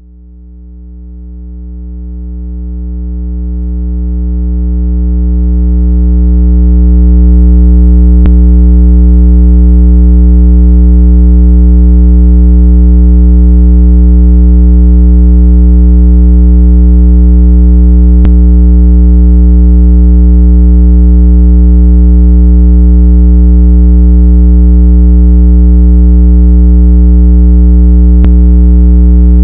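Synthesized low electronic tone for ejecting water from a phone speaker. It fades in over the first several seconds and then holds steady at full volume.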